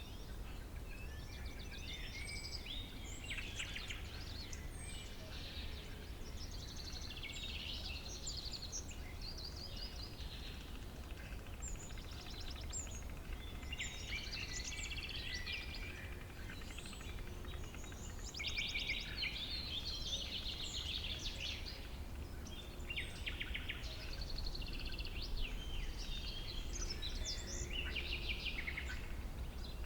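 Meadow ambience: several small birds singing and calling at once, with many short chirps and fast trills overlapping, over a steady low rumble.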